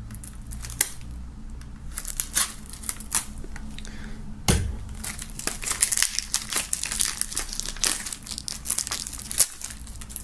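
Plastic shrink-wrap on a CD jewel case crinkling and tearing as it is slit with a knife and peeled off the case. The crackling is sparse at first and turns dense in the second half, with a single sharp knock about four and a half seconds in.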